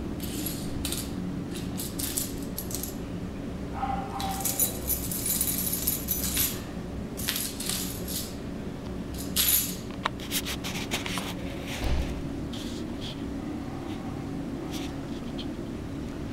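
Cat batting a small toy across a hard tiled floor: scattered clicks, rattles and jingling, with a longer run of rattling a few seconds in.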